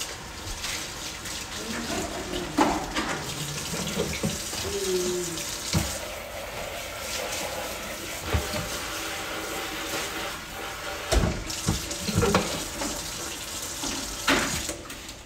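Kitchen tap running into a sink while hands are washed under it, with a few short knocks and clatters against the sink.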